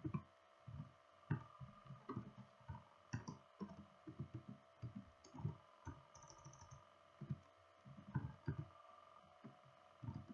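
Typing on a computer keyboard: a run of quick, irregular keystrokes over a faint steady hum.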